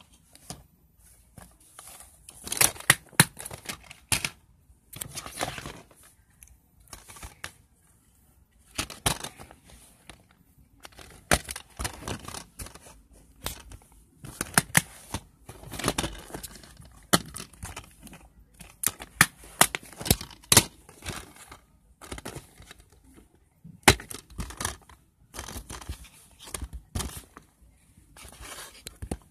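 Plastic DVD cases being handled close to the microphone: irregular clicks, snaps and rustling scrapes, with short pauses between.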